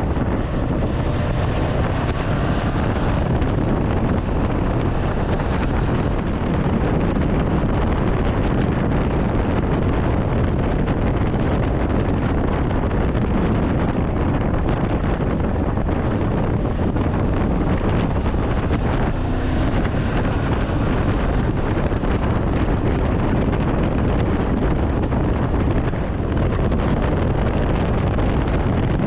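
Honda CB500X parallel-twin motorcycle running at a steady pace, heard under heavy wind buffeting on the microphone.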